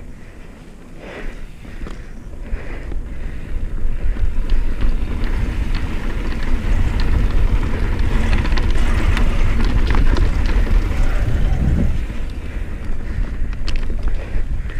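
Rurok Cordillera mountain bike descending a dirt trail: tyres rolling over the dirt with clicks and rattles from the bike, under heavy wind buffeting on the camera's microphone. The rush grows louder about three to four seconds in and stays loud.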